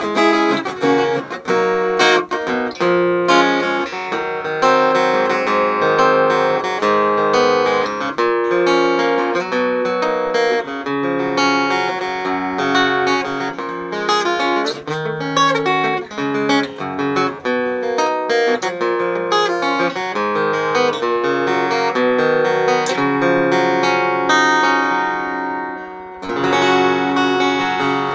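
At First AG-07 dreadnought-style steel-string acoustic guitar played solo: a picked melodic passage over chords, with occasional sharply struck chords. The playing breaks off briefly near the end, then resumes with a final phrase.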